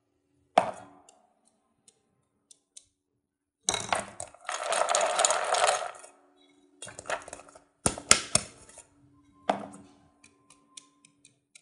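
Raw peanuts rattling and sliding around inside a metal pot as it is shaken to coat them in flour, with a few sharp knocks of the pot.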